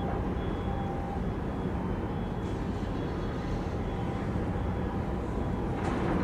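Steady low rumble of harbour ambience, with engine noise from ships on the water and a brief swell in level near the end.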